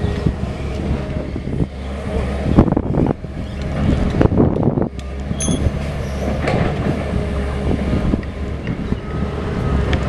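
Heavy construction machinery running: a steady diesel engine hum with irregular metallic clanks and knocks, and one short high-pitched beep about five and a half seconds in.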